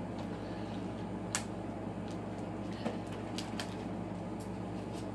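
Steady low room hum with a few sharp, light clicks: one clear click about a second and a half in, then several fainter ones near the end.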